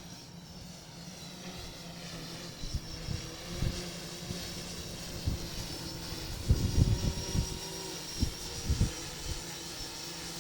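Yuneec Typhoon H hexacopter hovering, its six propellers giving a steady whine, with gusts of wind buffeting the microphone as low rumbles, strongest about six to seven seconds in.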